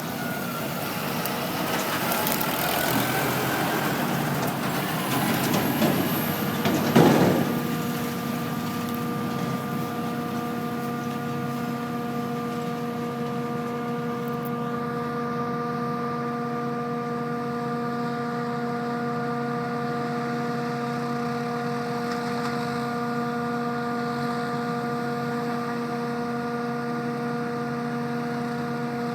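Farm machinery engines working in a maize harvest: a loud, changing engine noise that swells to a peak about seven seconds in, then settles into a steady drone that holds for the rest of the time.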